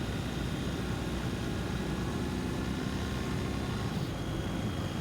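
BMW R 1250 GS boxer-twin engine running at a steady, even pace while riding, with a haze of wind and road noise over it.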